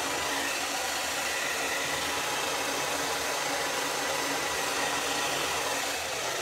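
Handheld hair dryer running steadily, blowing hot air into hair wound on a round brush: an even rush of air that dips slightly at the very end.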